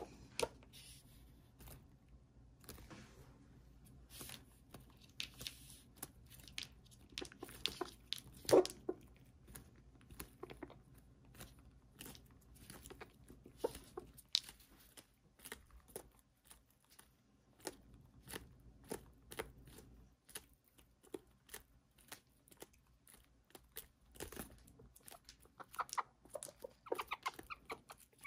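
Serama bantam roosters pecking and tearing at napa cabbage leaves: many quick, irregular beak clicks and crunches, one sharper than the rest about eight and a half seconds in.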